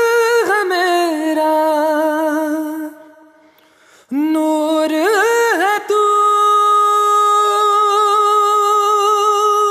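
A solo voice singing a wordless, melismatic opening line with vibrato, with little or no accompaniment. It comes in two phrases with a short break about three seconds in, and the second phrase ends on a long held note.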